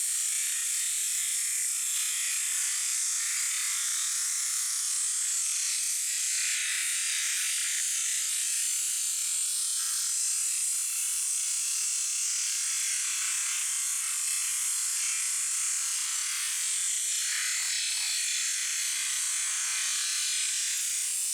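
A high-pressure washer's water jet hissing steadily, a high, even spray noise with no pauses.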